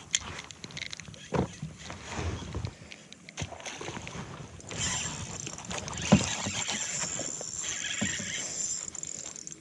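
Knocks and clatter of gear against a fishing kayak, then a steady rushing hiss from about five seconds in.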